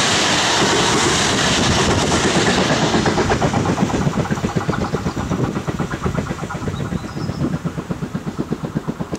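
Double-deck car-carrier wagons of a passing train rolling by with a loud, steady rush of wheel and rail noise. About three seconds in the last wagon passes, and the sound thins to a rhythmic clatter of wheels on the rails that fades as the train moves away.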